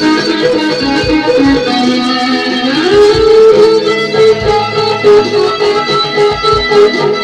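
Electric guitar being played: held notes and runs, with a slide up in pitch about three seconds in.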